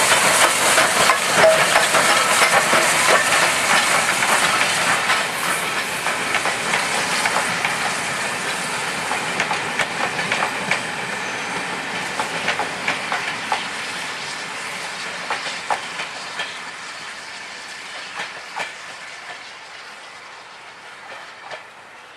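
LMS Stanier 8F steam locomotive No 48305 passing close by, followed by its train of red coaches rolling past, wheels clicking over the rail joints. The sound fades steadily as the train draws away.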